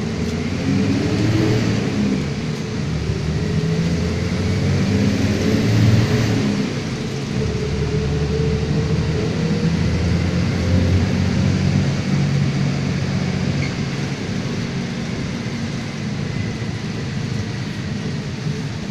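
Iveco CC170E22 bus's diesel engine running under way, its revs climbing over the first several seconds, dropping about seven seconds in, then holding steady.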